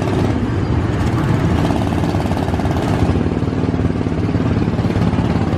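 Small gasoline engine of an amusement-park race car running steadily, a fast even putter.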